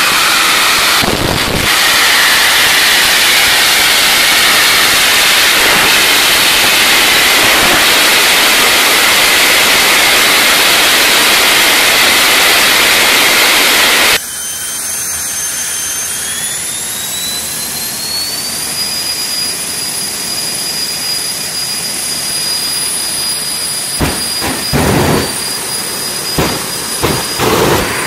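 Jet dragster's turbojet engine running at high power, a loud, dense rushing noise. About halfway through it cuts to a quieter jet turbine whose whine rises in pitch over a few seconds and then holds steady, with a few knocks near the end.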